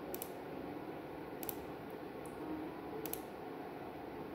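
Light, sharp clicks of a computer's controls, four of them about a second apart, as the ultrasound images are stepped through, over a faint steady room hum.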